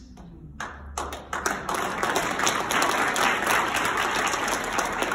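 Audience applauding: a few separate claps about a second in, quickly swelling into full, steady applause.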